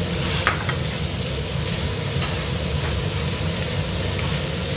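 Fried tofu and shredded carrot sizzling in oil in a stainless steel wok while a wooden spatula stirs and scrapes, with a few sharp clicks of the spatula against the pan about half a second in. A steady low hum runs underneath.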